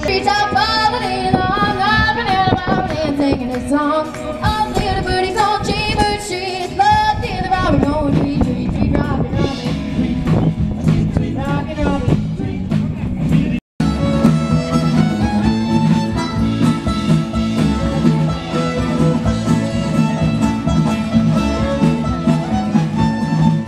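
Live country band music with guitars, singing and fiddle. It breaks off briefly about 14 seconds in, then fiddle and guitars carry on.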